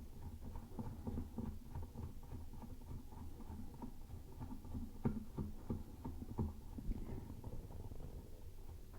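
Irregular small clicks, scrapes and taps of hands threading a toilet seat nut onto its seat bolt under the bowl, with a couple of sharper knocks about five and six and a half seconds in.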